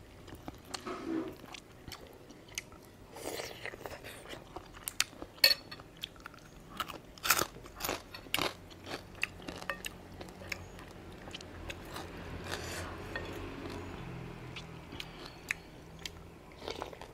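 A person chewing and biting crunchy food close to the microphone, with sharp crunches coming at irregular intervals.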